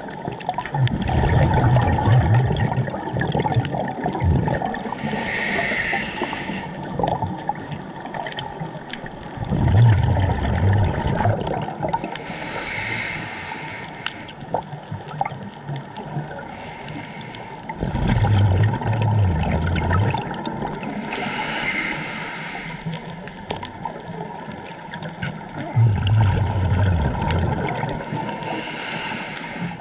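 A scuba diver breathing through a regulator underwater. A hissing inhale alternates with a low, bubbling exhale, about four breaths, one roughly every eight seconds.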